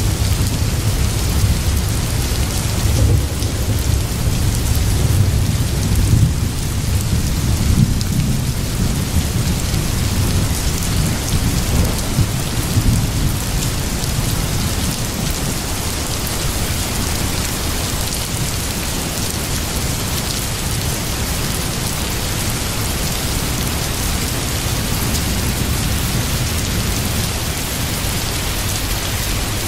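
Steady rain with low rolling thunder. The rumble is heaviest in the first dozen seconds, then the rain goes on as an even hiss.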